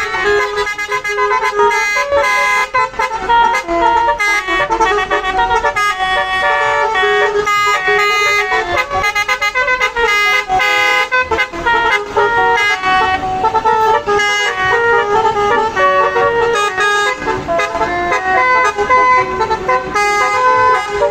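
Buses' telolet horns, multi-note musical air horns, playing quick melodic tunes one after another without a break: a horn battle between buses.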